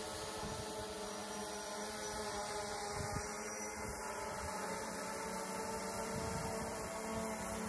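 A steady droning hum with several held pitches, unchanging throughout.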